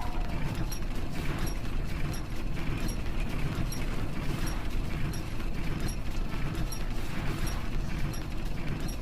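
Large game-show bonus wheel spinning, with repeated ticks from its flapper clicking over the pegs above a low rumble.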